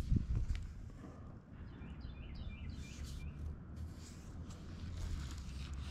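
Low, steady outdoor background rumble, with a small bird chirping a quick run of short high notes about two seconds in. A couple of light clicks at the start.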